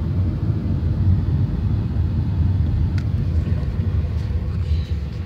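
Steady low rumble of a car on the move, heard from inside the cabin, with a single short click about three seconds in.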